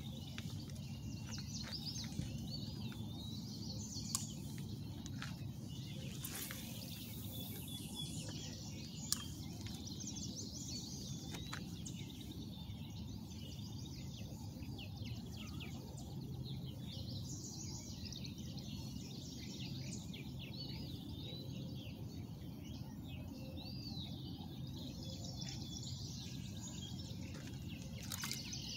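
Small birds chirping and twittering over a steady low outdoor rumble, with a few isolated sharp clicks.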